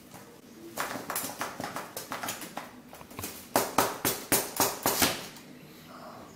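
Metal springform cake tin knocking and scraping on a stone worktop as it is handled and unclipped: a run of irregular clicks and knocks, sharpest and loudest between about three and a half and five seconds in.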